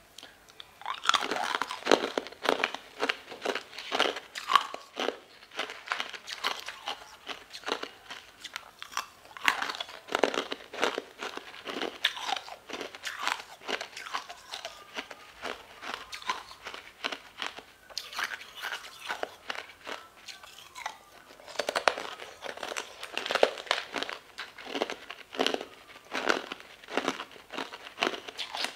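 Hard chunks of coloured ice being bitten and crunched, in runs of sharp cracks with a few brief lulls.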